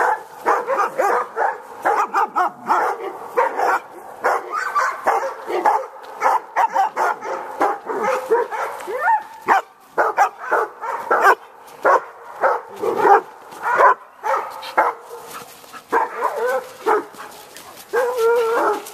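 Dogs barking and yipping at play in rapid, repeated short bursts, with a few longer calls that slide in pitch about halfway through and near the end.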